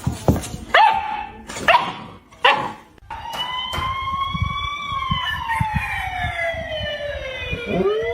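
A dog barking sharply four times. Then a long unbroken wail slowly rises, falls and rises again, as from a siren or a dog howling.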